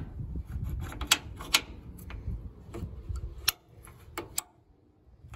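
A pickup tailgate's support cable being fitted onto its stud: a run of sharp metal clicks and light knocks, stopping about four and a half seconds in.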